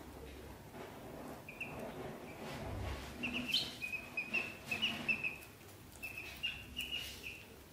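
Ducklings peeping: a run of short high chirps, several a second, starting about a second and a half in and stopping shortly before the end, over soft rustling as the ducklings shift against the wicker basket.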